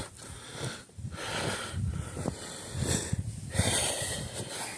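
Four hissing, breath-like stretches of about a second each, with soft crunching under them: a person breathing hard while trudging through shin-deep snow.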